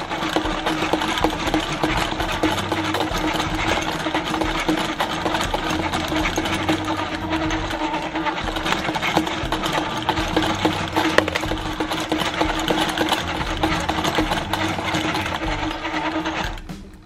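Small battery-powered motor and plastic gears of a coin-eating toy dog piggy bank, running steadily with a constant hum while the dog lowers and lifts its head to eat a coin. It stops suddenly shortly before the end.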